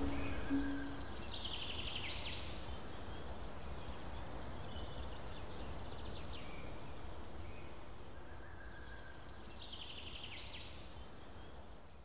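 Woodland ambience: a songbird sings a short phrase of quick notes that drop in pitch and end in a flourish, three times, over a steady low background rush. The last few low music notes fade out in the first second.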